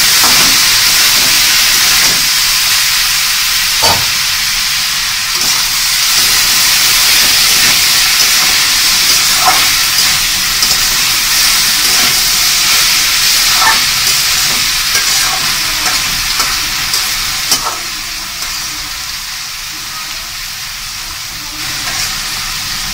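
Bitter gourd and potato frying in hot oil in a karahi, a steady sizzle, with a few sharp clicks of a spatula as the fry is stirred. The sizzle grows quieter in the last few seconds.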